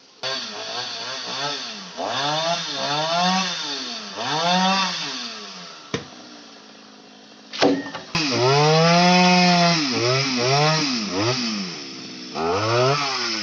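Chainsaw revving in repeated surges as it cuts a tree, its engine pitch climbing and falling with each squeeze of the throttle. Around six seconds it drops to a quieter idle, then revs hard again from about eight seconds, holding high for a second or so.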